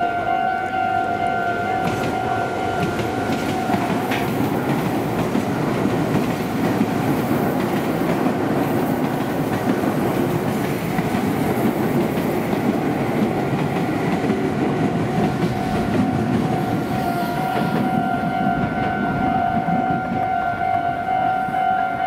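Railway level-crossing alarm ringing with a steady electronic tone while a Meitetsu electric train passes through the crossing, its wheels clattering over the rails and drowning the alarm for most of the passage. The alarm stands out clearly again after the train has gone by.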